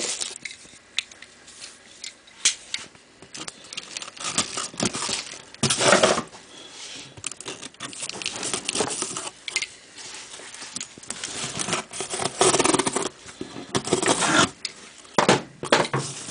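A knife cutting through the packing tape on a cardboard box, then the flaps being pulled open: irregular scraping, crackling and tearing of tape and cardboard.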